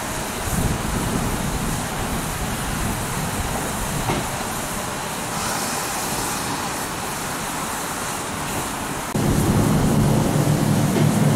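GWR 0-6-0 pannier tank steam locomotive standing with its train, steam hissing softly. About nine seconds in the sound jumps louder, with a steady low hum added.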